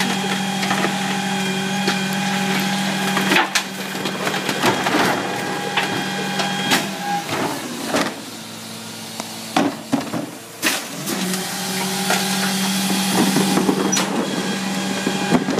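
Rear-loading garbage truck at the curb: its engine runs with a steady hum, while trash from wheeled carts knocks and clatters into the hopper. The hum drops away about three and a half seconds in, and there are many sharp bangs before it comes back near the end.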